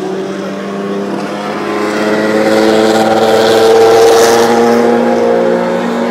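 Historic 1970s–80s Formula One cars running at racing speed, more than one engine heard at once. The engine note grows louder to a peak about four seconds in as a car comes past, then eases.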